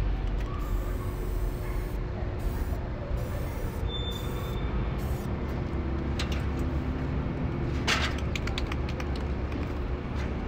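Steady low rumble of street traffic, with hisses of a spray paint can: a short one about six seconds in, a longer one near eight seconds, then several quick spurts.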